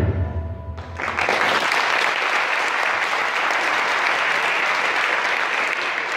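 The last chord of a folk ensemble ringing out, then about a second in, sustained applause breaks out and continues steadily.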